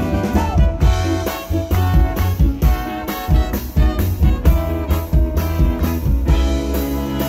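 Live swing band playing with horns and a steady drum beat, no vocal line prominent.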